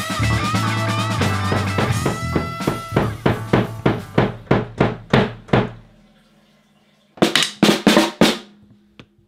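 End of a rock song: an electric guitar holds and bends a note over steady drum hits, about three a second, that fade out about six seconds in. After a short pause comes a quick run of about five snare drum strikes with wooden sticks.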